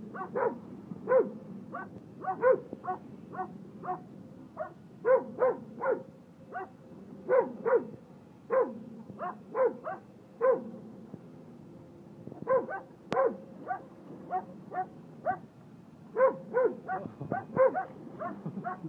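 Small dog barking over and over in quick runs of short, high yaps, with brief pauses between runs.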